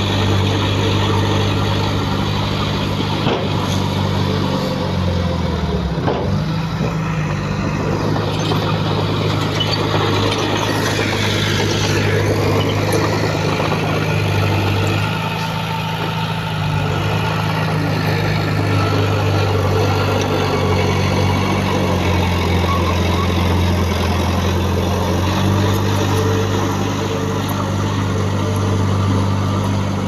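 Heavy diesel engine of earthmoving machinery running steadily, its pitch dropping briefly about five seconds in and shifting a few more times as the load changes.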